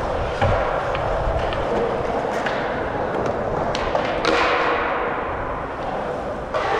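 Dirt jump bike rolling over smooth concrete skatepark surfaces: a steady rush of tyre and air noise with scattered clicks and knocks from the bike, growing louder about four seconds in and with a sudden thump near the end.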